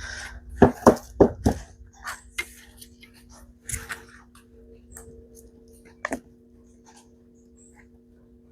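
Handling clicks and knocks from working a fuel line into a chainsaw's tank with a pick: four sharp knocks in quick succession about half a second to a second and a half in, then single knocks near four and six seconds in, with light ticks between. A steady low hum runs underneath.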